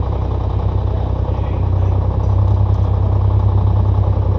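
A vehicle engine running steadily: a loud, even low drone with a fast regular pulse.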